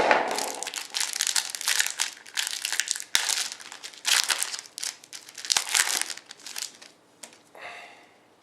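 Foil wrapper of a 2010 Absolute football card pack being torn open and crinkled by hand, in a run of crackly rustles that die down near the end.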